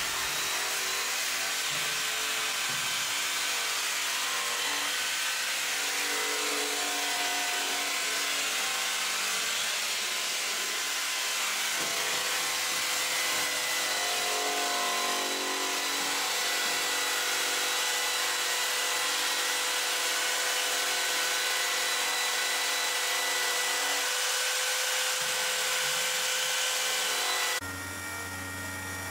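Electric heat gun running steadily, its fan making a constant rushing noise with a faint whine, as it is used to melt old lead solder and strip paint from car body panels. About a second and a half before the end the sound switches abruptly to an orbital sander running with a lower hum.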